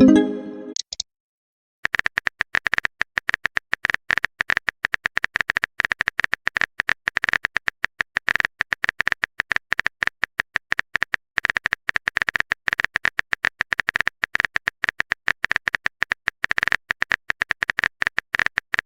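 A short pop at the very start, then, after about a second's pause, a rapid, uneven stream of identical sharp clicks: a keyboard-typing sound effect running while a message is typed out.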